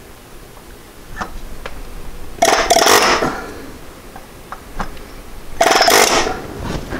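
Pneumatic air chisel hammering on a rounded-out Allen bolt in a VW water pump pulley, in two short bursts, the first about two and a half seconds in and the second about three seconds later. It is an attempt to bite into the seized bolt head and shock it loose.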